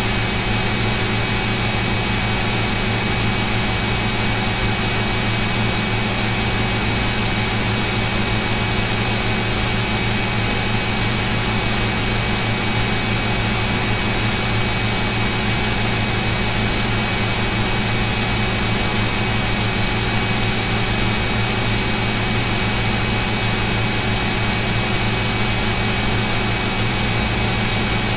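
Steady, loud hiss with a low hum and a few faint steady whining tones, unchanging throughout, like a running fan or motor.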